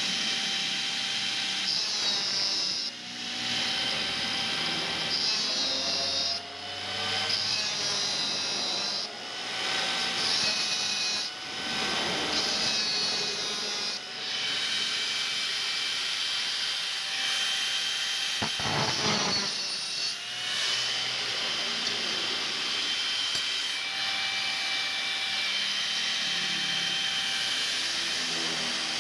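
A power tool cutting steel: a steady grinding noise with a squealing, ringing note that wavers in pitch, easing off briefly every two to three seconds.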